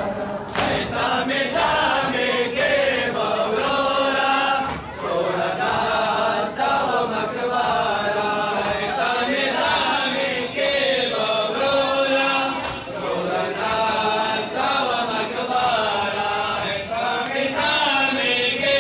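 Men's voices chanting a Pashto noha, a mourning lament sung to keep time for chest-beating matam, with a few chest-beating thuds right at the start.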